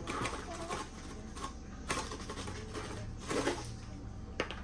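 Scattered light clicks and taps of kitchen utensils and containers being handled, over a low steady hum.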